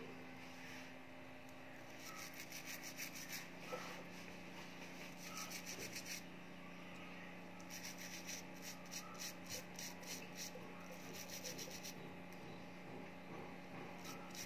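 Faint, quick rubbing strokes on a small metal earring part worked by hand, about four strokes a second, in two runs of a few seconds each.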